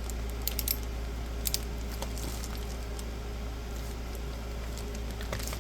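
A few light clicks and rustles from a newly unboxed clamp meter and its packaging being handled, over a steady low hum.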